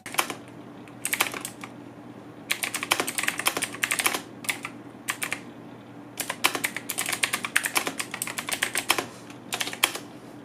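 Sades Shield mechanical keyboard with Kailh blue clicky switches being typed on: fast runs of sharp keystroke clicks in bursts, broken by brief pauses.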